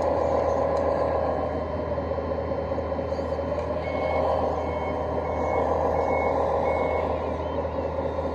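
A 1/14 scale Komatsu WA470 RC wheel loader running with a steady whine that slowly rises and falls in pitch. From about four seconds in, its reverse alarm beeps five times, evenly spaced, as the loader backs up.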